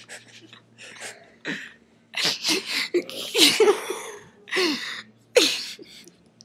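Young men making loud, breathy nonverbal vocal noises: a run of hissing exhalations, then louder short shouts that fall in pitch, the last near the end.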